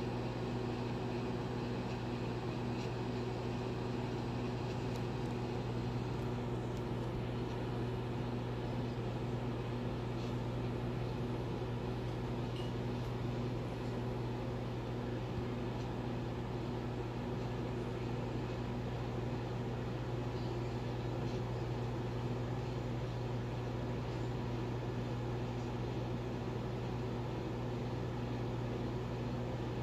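Microwave oven running, a steady low electrical hum as the turntable turns.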